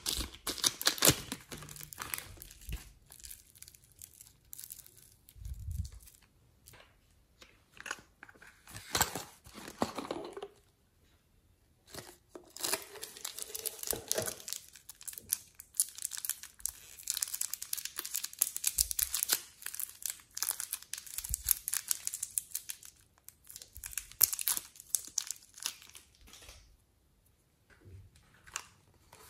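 Thin clear plastic piping bag crinkling and rustling as it is handled and squeezed to push soft clay out, in irregular bursts with short quiet gaps.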